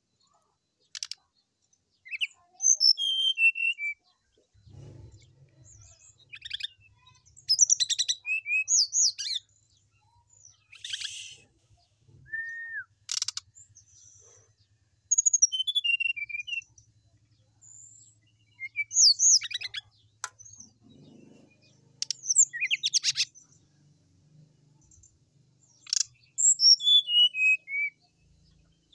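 Brown-chested jungle flycatcher singing a string of short, varied phrases every couple of seconds. The phrases mix quick runs of descending notes, whistled glides and fast rattling trills.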